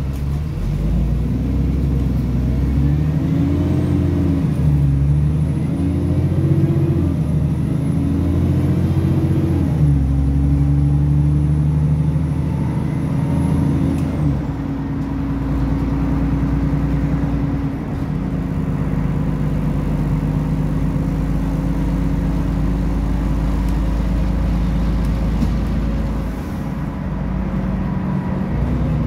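Bus engine and drivetrain heard from inside the passenger saloon, pulling hard. The engine note rises and drops about three times in the first ten seconds as the bus accelerates through its gears, then settles into a steady cruising drone. A faint high whine sounds during the acceleration and stops about halfway through.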